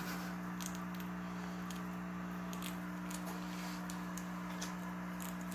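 Faint scattered light ticks and rustles of mice moving in wood-shaving bedding, over a steady low hum.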